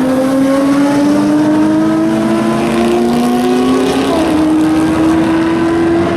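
A historic endurance racing car's engine accelerating hard, its pitch climbing steadily, with an upshift about four seconds in, after which it pulls on again.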